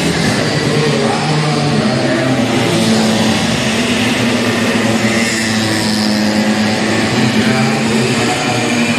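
Several two-stroke scooter engines running at high revs as the racers pass, their pitches shifting up and down and overlapping.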